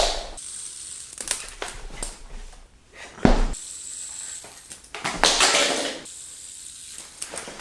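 Scattered taps and clicks of handling, with a heavy thump about three seconds in and a second of hiss around five seconds in.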